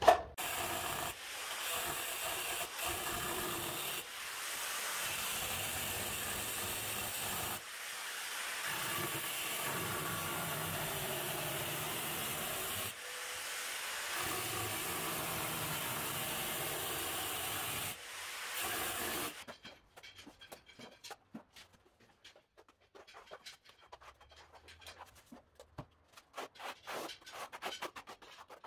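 Angle grinder cutting a ceramic floor tile, a steady hissing grind in several passes separated by short pauses. After it stops, about two-thirds of the way in, only faint scraping and ticking remain.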